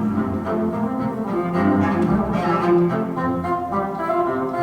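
Recorded classical music with low bowed strings, played back over a hi-fi loudspeaker system, with slow, held notes.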